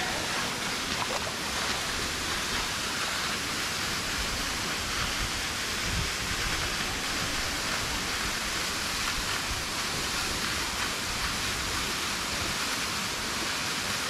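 Small jungle waterfall: two thin streams of water falling onto boulders and splashing into a shallow pool, a steady rushing hiss.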